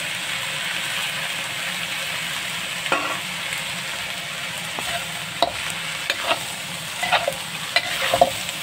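Ground pork and diced tofu sizzling in a hot pan, stirred with a metal spatula. The spatula scrapes and clicks against the pan several times from about three seconds in.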